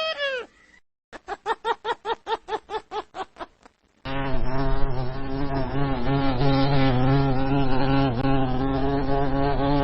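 An animal call ends just after the start, then a fading series of about a dozen short pitched calls, about four a second. From about four seconds in comes a steady buzzing like a flying insect, with a low hum under it.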